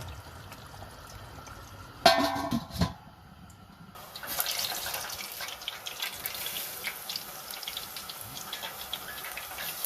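Curry simmering in a pot, bubbling and crackling steadily from about four seconds in. A short, loud, ringing scrape comes about two seconds in.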